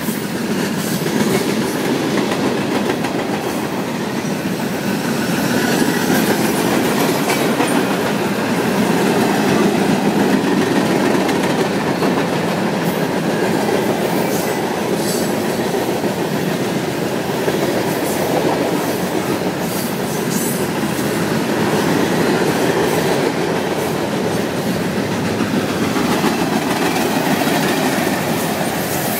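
Freight cars of a manifest train rolling past: a steady rumble of steel wheels on rail, with scattered sharp clacks.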